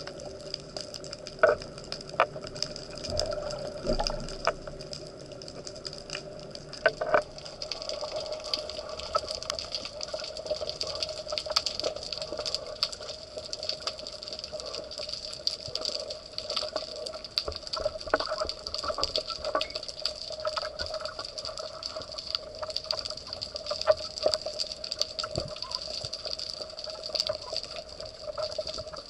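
Underwater ambience: a steady watery hiss dotted all through with sharp clicks and crackles, with a few louder knocks in the first seven seconds.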